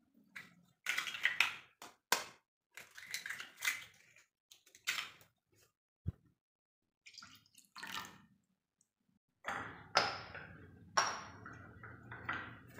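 Eggs being cracked and emptied into a stainless steel mixer jar: a series of short cracks and wet drops with pauses between them. From about nine and a half seconds a low steady hum sets in, with a few sharp clinks of a spoon against ceramic jars as salt is added.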